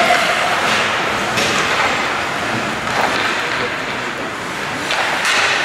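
Ice hockey play in an echoing indoor rink: a steady hiss of skates scraping the ice, broken by several sharp clacks of sticks on the puck, and voices in the background.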